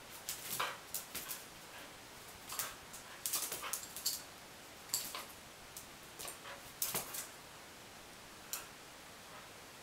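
A corgi's claws clicking and skittering on a ceramic tile floor as it dashes and turns after a laser dot. The sharp ticks come in irregular bursts and fall quiet near the end.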